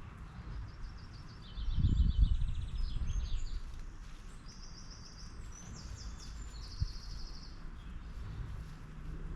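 Garden songbirds chirping and singing in quick, high, rapidly repeated trills, several phrases overlapping. A low rumble swells about a second and a half in, louder than the birds for about two seconds, and rises again near the end.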